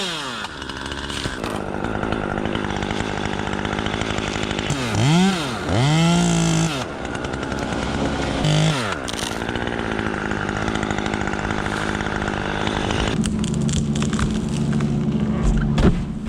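Two-stroke chainsaw running, revved up and back down several times between stretches at steady speed. A run of short knocks comes near the end.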